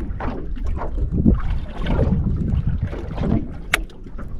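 Water lapping against the hull of a small boat drifting at sea, with wind rumbling on the microphone. A single sharp click sounds near the end.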